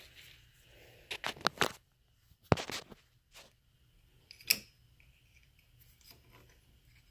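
Metal parts of a hydraulic bottle jack clicking and knocking as they are handled and fitted by hand: a quick run of clicks about a second in, then two sharp knocks, the louder one about two and a half seconds in and another about a second and a half later.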